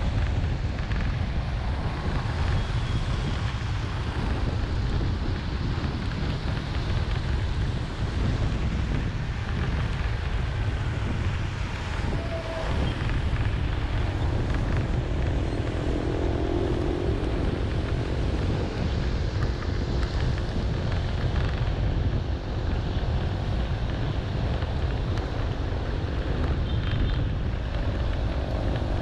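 Steady traffic noise while driving through heavy rain on a wet road: a low wind rumble on the microphone and the hiss of wet tyres. Other vehicles' engines pass about halfway through and again near the end.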